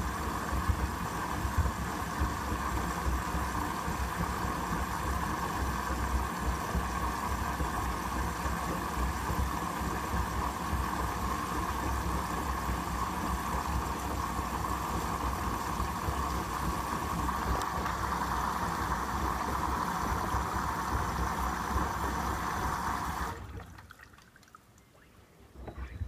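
Hoover WDYN 11746 PG8 washer-dryer's drum turning in the first rinse: sudsy water and a load of rugs and shoes sloshing and tumbling over a steady hum. About 23 seconds in the drum stops for its pause between tumbles and the sound drops away suddenly, leaving only faint ticks.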